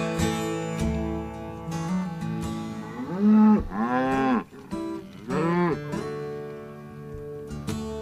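Cattle mooing three times in quick succession, each call rising and then falling in pitch, over acoustic guitar music.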